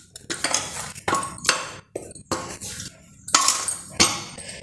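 A hand kneading a stiff dough ball in a stainless steel plate, giving a series of irregular presses and scrapes, about two a second, with the metal plate clinking under them.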